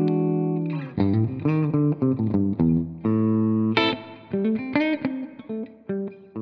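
Epiphone Korina Explorer electric guitar played through an amp. A chord rings out for under a second, then comes a choppy riff of short notes and chords with a few sharp strummed accents.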